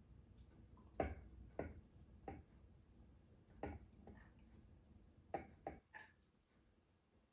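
A spoon scooping thick tahini out of a jar, knocking against the jar and measuring cup in a series of sharp, irregularly spaced clicks and taps.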